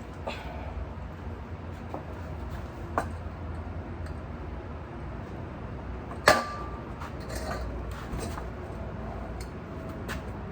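Hand tools and metal engine parts clicking and clinking during motorcycle work: scattered light clicks, a sharper one about three seconds in, and one loud metallic clink about six seconds in that rings briefly, over a low steady background rumble.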